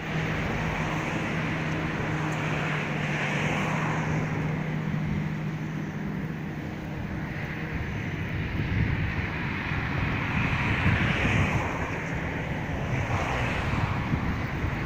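Small river pleasure boat's engine running with a steady low hum, over rushing water and wind buffeting the microphone. The hum fades about halfway through while the wind and water noise swells and falls in gusts.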